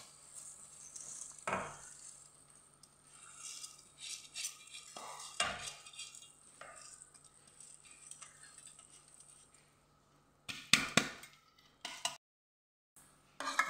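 Washed rice being poured and shaken out of a perforated aluminium colander into a steel pot of simmering curry water, with scattered clinks and knocks of the metal colander against the pot. The loudest knocks come near the end.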